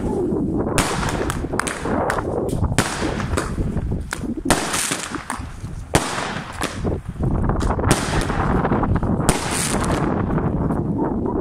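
Piromax Bloom PXB2010 firework cake (a nine-shot launcher) firing. It gives a run of sharp reports spread over about ten seconds as shells launch and burst, over a steady low rumble.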